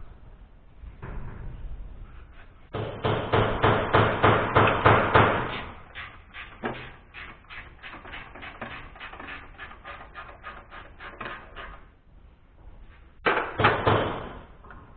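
Rapid run of sharp mechanical clicks, about five a second, loudest in the first few seconds, then fading. A short loud burst of the same clicking follows near the end.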